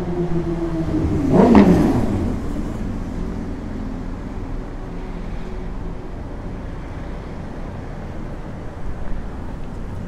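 Road traffic, with a motor vehicle passing close by and loudest about a second and a half in, then a steady traffic hum.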